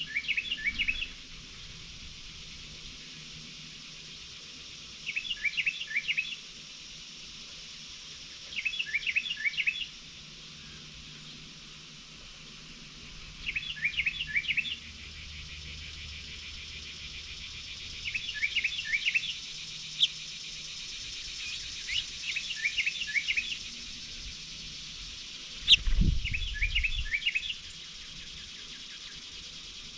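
A songbird repeating one short phrase of rapid high notes, each about a second long, seven times at roughly four-second intervals, over a steady background hiss. A single low thump comes near the end.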